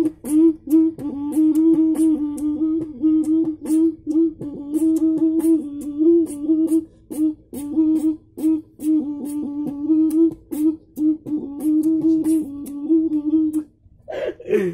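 A man beatboxing: a hummed tone at a nearly steady pitch, broken into rhythmic pulses, over quick, high hi-hat-like clicks. The hum stops about a second before the end.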